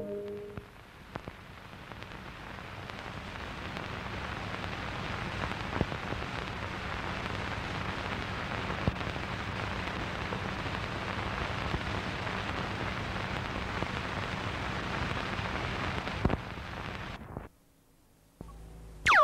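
Surface noise of an old film soundtrack with no programme on it: a steady crackling hiss with a few sharp pops and a faint low hum. It cuts off about seventeen seconds in.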